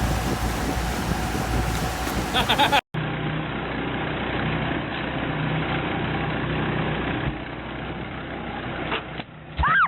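An engine running steadily at idle under a haze of noise. It breaks off at a sudden cut about three seconds in, then goes on as a similar steady hum in another clip. There is a short high-pitched cry near the end.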